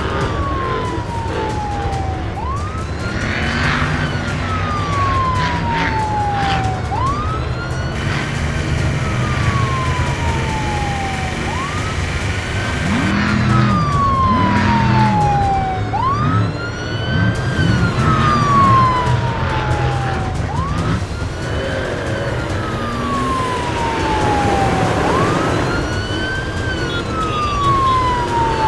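Police car siren wailing in a repeating cycle: a quick rise in pitch, then a long slow fall, about every four and a half seconds. Under it runs a steady low rumble of vehicle engines.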